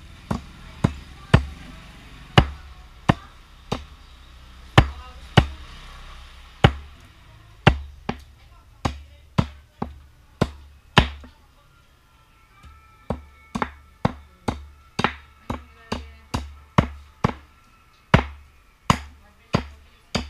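A knife blade chopping repeatedly into a piece of jackfruit wood resting on a wooden block: sharp chops with a thud, about two a second, that carve shavings off the wood.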